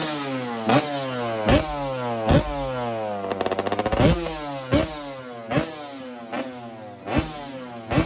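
A 1989 Suzuki RM125's single-cylinder two-stroke engine being revved in quick throttle blips, about one every 0.8 seconds. Each blip rises sharply and then falls back. About halfway through it drops briefly toward idle.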